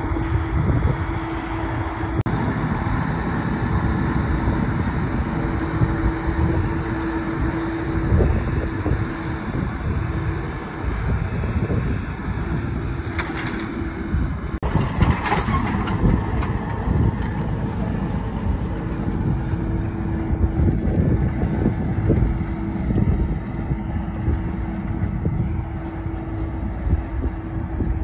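Case IH tractor engine running steadily as it pulls a seed drill through dry, sandy soil, with a steady drone over a dense low rumble.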